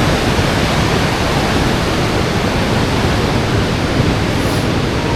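Waterfall pouring into a pool, a loud steady rush of falling water.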